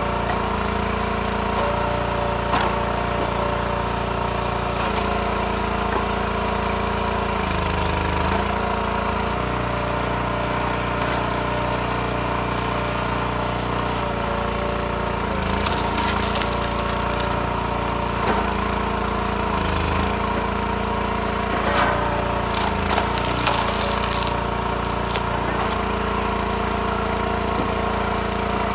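Gasoline engine of a Timberwolf TW-5 hydraulic log splitter running steadily, its pitch sagging briefly a few times as the splitter takes load. Sharp cracks and knocks of wood rounds splitting come in the second half.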